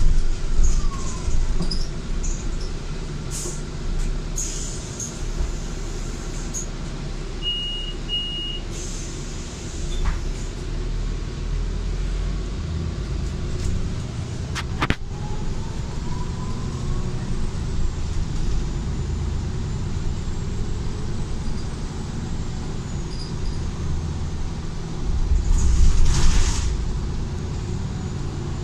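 Solaris Urbino 8.9 city bus heard from inside the cabin: a steady low diesel-and-road rumble, with two short high beeps about eight seconds in and a sharp click about halfway through. A rising whine follows as the bus gets under way, and a loud burst of air hiss comes near the end.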